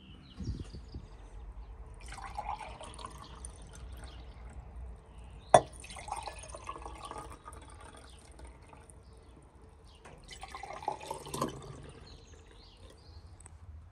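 A drink poured from a glass jug into drinking glasses, three pours one after another, with a sharp clink of glass just before the second pour.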